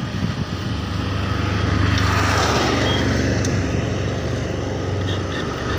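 Wind rushing over the microphone and road rumble while riding a bicycle on a paved road, with a low rumble that swells in the middle.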